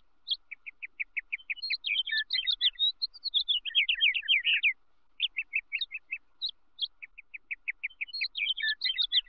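A songbird singing. Runs of quick, evenly spaced chirps lead into a jumbled warble, and the phrase repeats after a short pause about halfway through.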